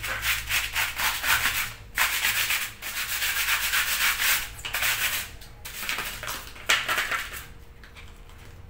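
Rapid back-and-forth scrubbing of a white plastic washing-machine part on a wet concrete floor, in several runs broken by short pauses and dying down near the end.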